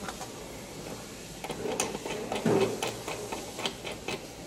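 Hands working a metal rear sight pusher tool: a run of small, irregular clicks and ticks that begins about a second and a half in, with a brief scuff midway.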